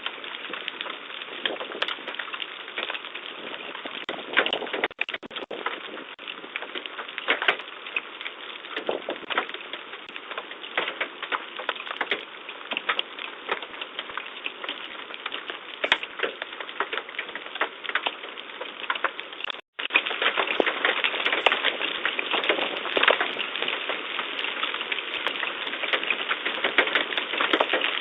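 Hailstones pelting down in a dense, rapid clatter of hard impacts. There is a brief break about twenty seconds in, and the clatter is louder after it.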